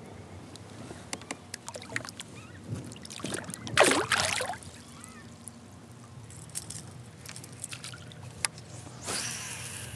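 A splash of lake water beside a kayak about four seconds in, as a released smallmouth bass kicks away, with light clicks and knocks from the kayak and gear around it. A second, shorter wash of water comes near the end.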